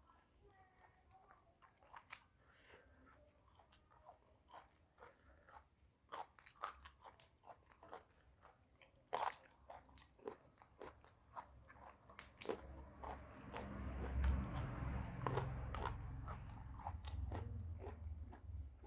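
Close-up crunching bites and chewing of raw vegetables, with sharp crisp crunches spread through, growing louder and denser about two-thirds of the way in.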